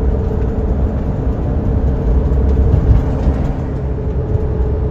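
Engine and road noise inside the cab of a diesel van driving on the open road: a steady low rumble with a constant drone.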